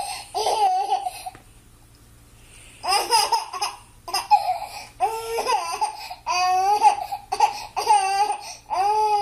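A baby laughing in high-pitched squealing bursts. The laughter pauses about a second and a half in, then comes back in repeated fits.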